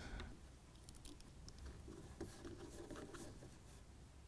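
Near silence with faint handling noise: scattered small clicks and rustles of hands working a plastic point motor, its wires and a 9-volt battery.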